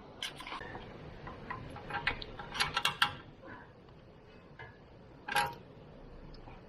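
Scattered metallic clicks and clinks of bolts and hand tools as bolts are fitted to hold a new rear wheel bearing in its carrier, with a quick run of clicks about halfway through and a single click later.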